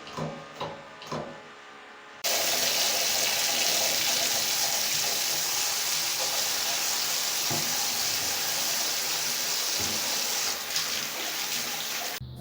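Water running hard from a tap: a steady hiss that turns on abruptly after a few soft knocks and cuts off suddenly near the end.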